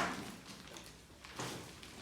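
Two thumps, the first sharp and the louder, the second about a second and a half later.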